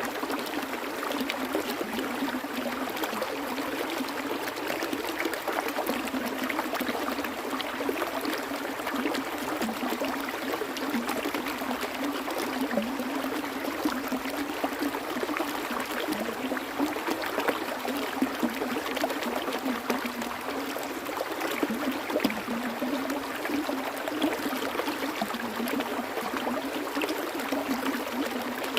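Flowing water in a small stream: a steady babble with many small splashes and trickles.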